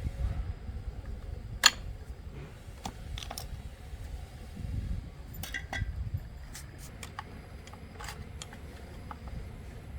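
Scattered clicks and clinks of metal tools and parts being handled, the loudest a single sharp knock about one and a half seconds in, over a low rumble.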